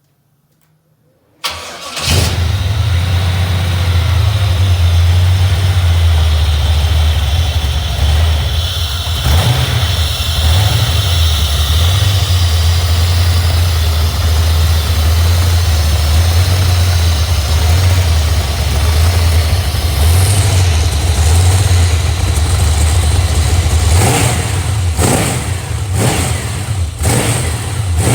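A GM LT1 5.7-litre small-block V8, rebuilt with ported heads and intake, cranks briefly on the starter and fires about a second and a half in, then runs at an uneven idle that rises and falls because it has not yet been tuned for its modifications. Near the end it is blipped several times in quick succession.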